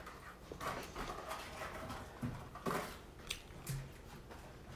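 A person chewing a burrito up close: scattered wet mouth clicks and smacks, with a couple of short low hums from the throat.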